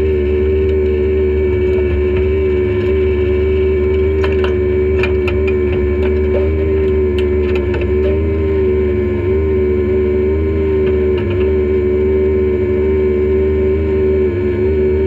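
Off-road race vehicle's engine running at a steady, nearly constant speed: a continuous drone over a heavy low rumble, wavering only slightly in pitch. A few light clicks and knocks come through between about four and eight seconds in.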